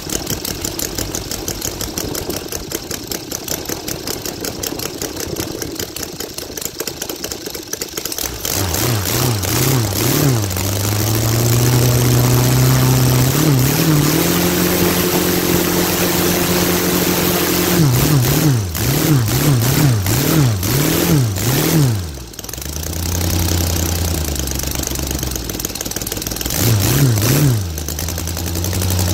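Saito FG-60R3 three-cylinder four-stroke petrol radial model aircraft engine, freshly repaired and serviced, driving a two-blade carbon propeller on a test stand. It idles for the first several seconds, then is revved up in quick throttle blips and stepped climbs to higher speed. A little past the middle it drops back to a lower speed, and it is blipped again near the end.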